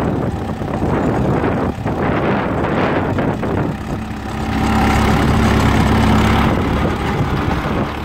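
Fordson tractor engine running steadily under load as it pulls a mounted plough through the ground. It grows louder for about two seconds around the middle as it passes close by, its steady low engine note coming through plainly.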